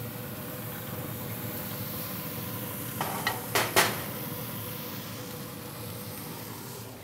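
Half-pound burger patties searing on very hot pellet-grill grill grates: a steady sizzle, with a few sharp clinks a little past halfway.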